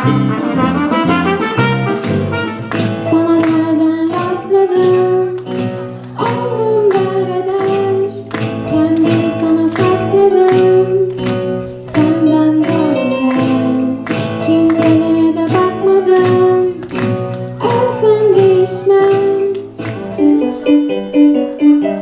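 A brass-led dance track plays for the first few seconds, then a girl sings into a microphone, accompanied by two acoustic guitars. Near the end, a keyboard begins a piano part with evenly repeated notes.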